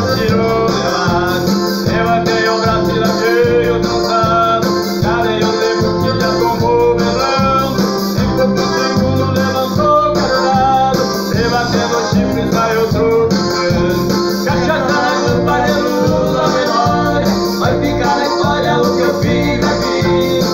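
A man singing to acoustic guitar and electronic keyboard accompaniment, over a steady beat of about two pulses a second.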